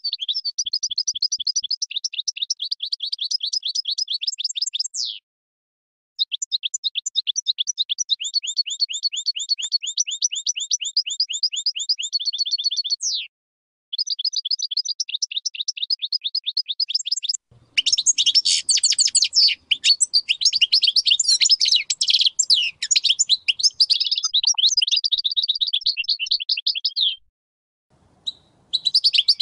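European goldfinch of the Major type singing: long runs of rapid, evenly repeated high notes broken by short silences, turning into a fuller, more varied twittering song about halfway through.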